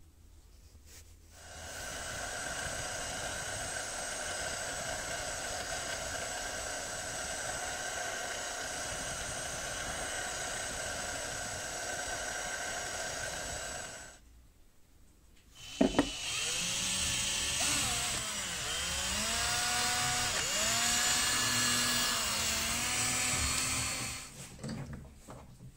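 A drill press running steadily, boring into a wooden handle block for about twelve seconds. After a short pause and a click, a cordless drill drills a small hole into a burl wood block, its pitch rising and falling as the trigger is squeezed and eased.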